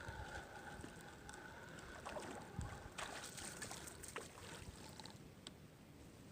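Faint wind and water hiss at the shore, with scattered light clicks and scrapes from handling the line while a small fish is brought in.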